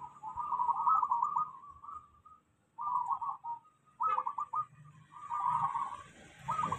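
Zebra dove (perkutut) cooing: quick, rolling coos in about five phrases, the first the longest, with short pauses between them.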